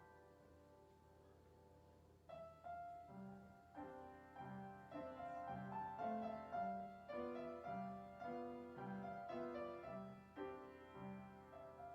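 Soft background piano music, a gentle melody over a repeating bass note, growing fuller about two seconds in.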